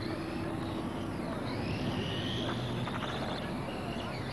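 Radio-controlled race cars' small motors whining, rising and falling in pitch as the cars speed up and slow down around the track.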